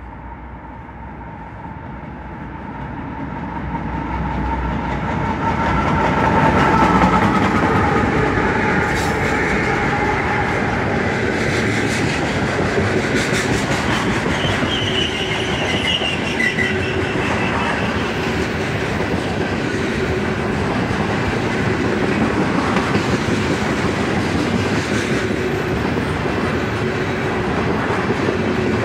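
CSX freight train passing without sounding its horn: the diesel locomotive's sound builds over the first several seconds as it comes in, then a steady loud rumble and clickety-clack of freight-car wheels over the rail joints. A few clanks and brief high wheel squeals come near the middle.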